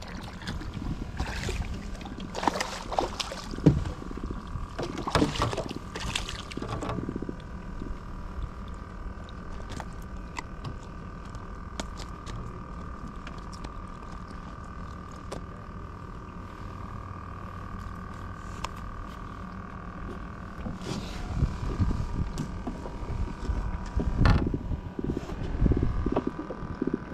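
A hooked black drum splashing at the side of a small boat and then being lifted and handled, heard as scattered splashes and knocks in the first few seconds and again near the end, over a steady faint hum.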